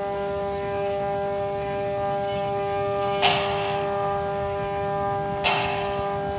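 The launch pad's stepper motor whines steadily at one constant pitch as it drives the rail down. It is louder than its advertised low-noise operation. Two short clacks come about three seconds and five and a half seconds in.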